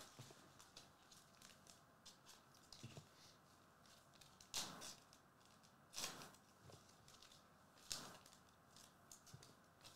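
Faint sliding and flicking of trading cards as a pack is thumbed through by hand, with three short louder swishes in the middle stretch.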